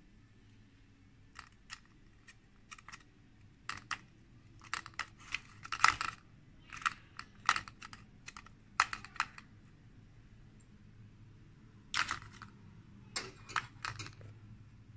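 Irregular light clicks and crackles, in clusters, as prawns and filling are spooned into crisp fried wonton cups in a metal muffin tin: the spoon knocking on the tin and the brittle fried wrappers crinkling.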